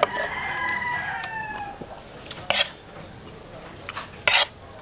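A rooster crows once, a call of about two seconds that drops slightly at its end. Then a metal spoon clinks twice against a plate.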